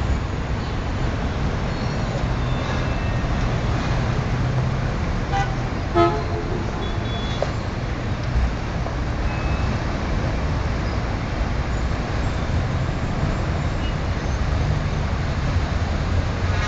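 Steady noise of heavy city traffic, cars, buses and scooters circling a large roundabout, with a short car-horn toot about six seconds in.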